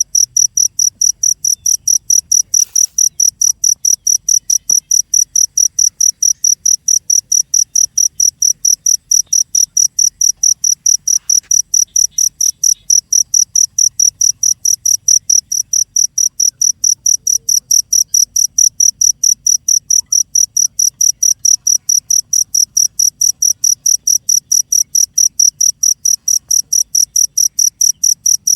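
A cricket chirping steadily and loudly, a high-pitched chirp repeated evenly at about three to four a second without a break.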